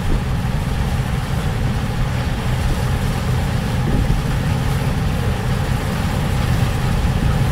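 Massey Ferguson IDEAL 7PL combine harvester working in standing wheat: a steady, deep engine and machinery drone with a rushing hiss over it.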